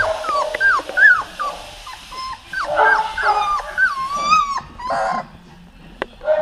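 Several young puppies whining and yipping: short, high cries that bend up and down, one after another and overlapping. They thin out after about four and a half seconds, with a single sharp click near the end.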